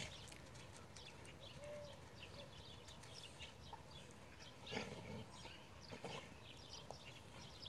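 Quiet outdoor background with many faint, scattered clicks and ticks, a slightly louder cluster about five seconds in, and one short faint tone about two seconds in.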